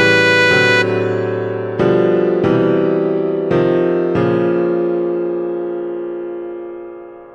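Piano playing a slow series of chords, about six strikes in the first four seconds, the last one held and slowly dying away.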